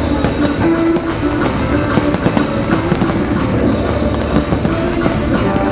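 Fireworks bursting in sharp bangs and crackles over the display's accompanying music, which plays loudly the whole time.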